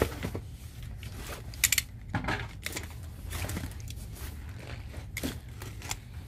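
Packaging being handled: a small cardboard box and plastic-wrapped items shuffled and rustled, with a quick cluster of sharp clicks about a second and a half in, and a box cutter scoring the box's tape in the second half.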